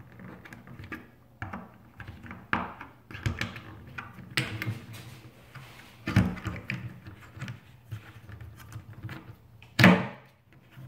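Plastic clicks and knocks of an action-camera mount being fitted together: the camera housing's extension arm worked onto a mount base glued to the board, with scattered small knocks and one louder knock near the end.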